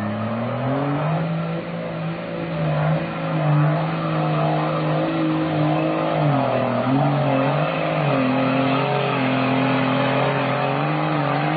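Cargo truck engine revving and labouring under load as the truck forces its way through deep mud. The pitch rises about a second in and dips briefly twice around the middle.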